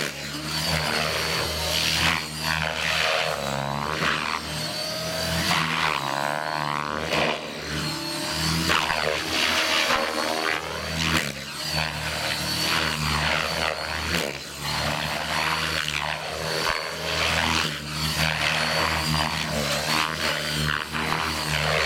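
Align T-Rex 600 EFL Pro electric radio-controlled helicopter in flight: a steady rotor whoosh with a thin high electric-motor whine. The sound sweeps up and down in pitch again and again as the helicopter swoops to and fro past the listener.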